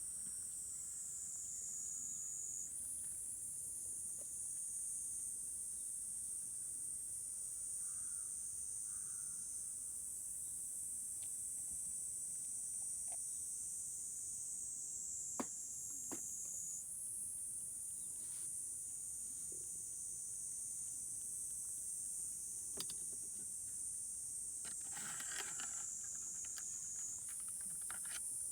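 Steady, high-pitched chorus of insects, a few faint clicks and a brief rustle near the end.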